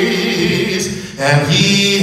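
A man singing a slow gospel song, drawing out long held notes. About a second in he breaks off briefly for a breath, then takes up a new note.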